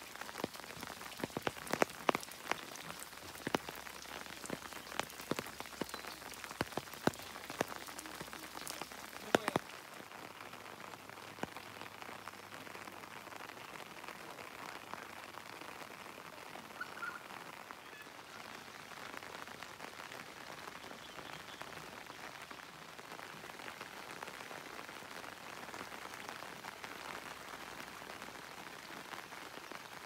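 Steady rain falling, with sharp taps of raindrops striking close by for the first ten seconds or so, then an even hiss of rain for the rest.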